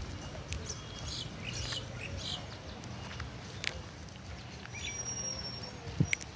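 Birds chirping in short high calls, with a few brief held whistles, over a low steady outdoor rumble. There is a sharp click about six seconds in.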